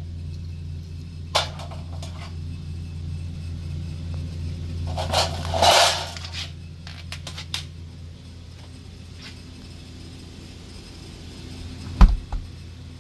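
Scattered clicks and knocks of hand work on a refrigerator door hinge, over a steady low hum that drops in level about halfway through; one sharp thump near the end is the loudest sound.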